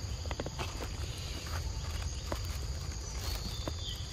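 Footsteps on a dry, leaf-strewn dirt path, a few irregular steps, over a steady high drone of insects and a low rumble. A short high falling chirp sounds near the end.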